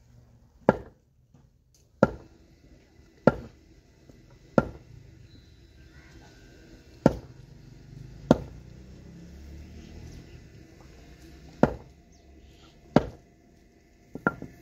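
A wooden tethering peg being pounded into the ground with a heavy wooden log: eight separate wood-on-wood blows, mostly about a second and a quarter apart, with a longer pause in the middle. A lighter double knock comes near the end.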